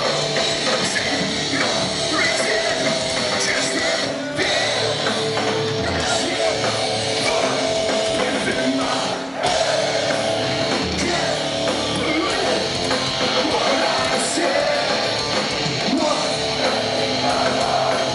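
Hardcore punk band playing live: distorted electric guitars, bass and drums with shouted singing, loud and dense throughout, with two very short breaks about four and nine seconds in.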